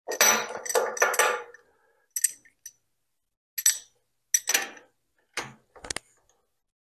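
Metal tools and parts being handled and set down on a workbench, with the mill's spindle stopped: a quick run of clinks and clatter in the first second and a half, then several separate sharp clinks.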